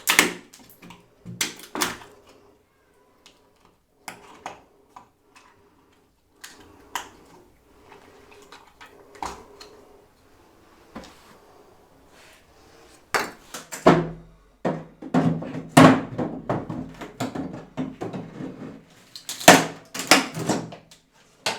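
Sharp knocks and clattering of hard objects being handled and shifted. They are scattered at first, then come as a dense run of clatter and scraping with a low rumble through the second half.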